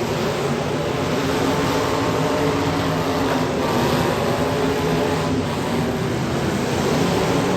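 Demolition derby car engines running steadily under an even wash of noise.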